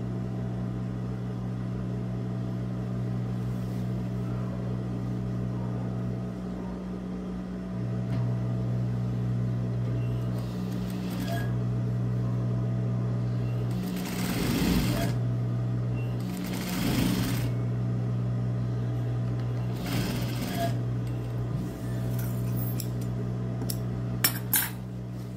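Industrial sewing machine with a steady motor hum, stitching in short runs while fabric is handled, with a few sharp clicks near the end.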